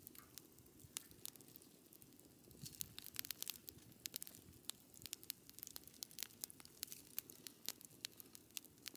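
Wood fire crackling, with irregular sharp snaps and pops that come thickest in the middle few seconds.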